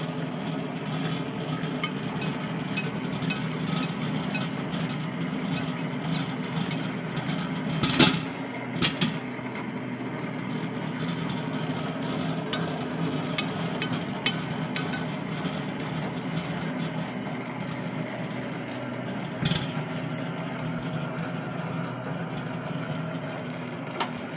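Hobart H600 planetary mixer running: a steady motor and gearbox hum with light irregular ticking. There is a sharp knock about eight seconds in, another a second later, one more past the middle, and a click near the end.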